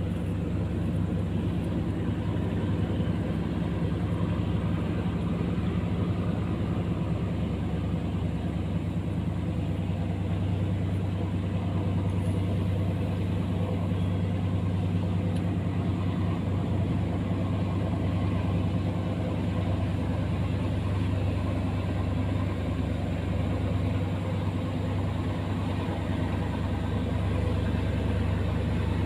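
Engines of passing river boats running steadily, a low, unchanging drone.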